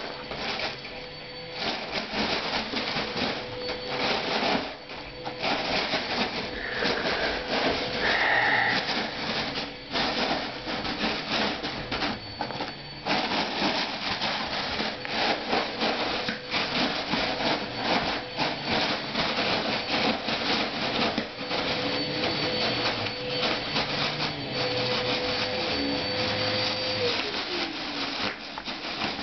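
Foil balloon crinkling and crackling continuously as a Yorkshire terrier bites, drags and shakes it.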